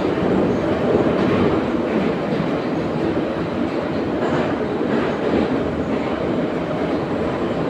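Metro train of the type nicknamed 'Boeing' running through a tunnel, heard from inside the passenger car: a loud, steady rumble of wheels on rails and running gear.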